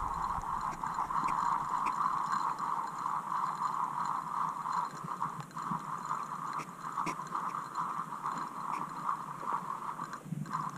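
Zebco 33 spincast reel being cranked to reel in a hooked fish, its gears giving a steady whir with a couple of short pauses.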